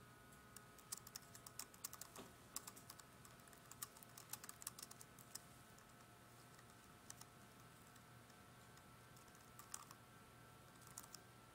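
Faint computer keyboard typing: a quick run of keystrokes over the first few seconds, then a few scattered key presses later on, over a faint steady hum.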